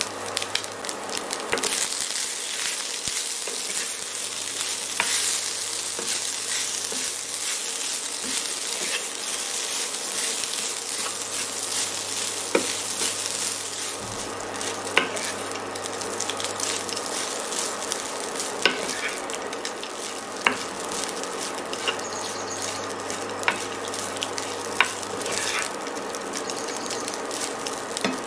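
Seasoned cooked rice frying in a non-stick pan, a steady sizzle as it is stirred and tossed with a wooden spatula, with occasional sharp clicks.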